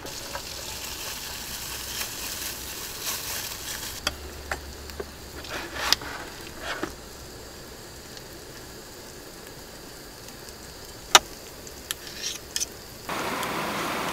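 Eggs sizzling faintly in a frying pan on a small gas-canister camp stove, with scattered clicks and taps of a utensil against the pan and bowl; one sharp click is the loudest. Near the end a louder steady hiss sets in abruptly.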